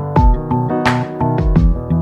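Background music with a steady beat: drum hits over sustained synth chords.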